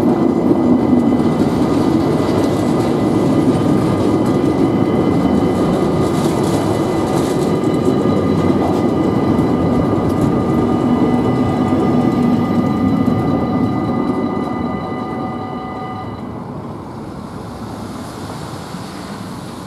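Freight train of rail tank wagons rolling past, a steady rumble of wheels on the rails. Several thin high tones sound over it and cut off about sixteen seconds in. Near the end the rumble fades as the last wagon goes by.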